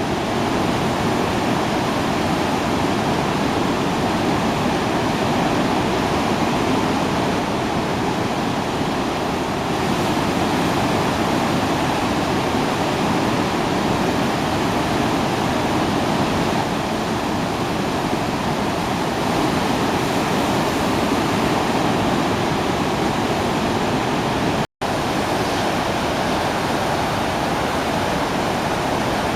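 Sarpsfossen, a large river waterfall in heavy flood flow (about 2400 cubic metres a second), making a loud, steady rushing noise. The sound cuts out for an instant about three-quarters of the way through.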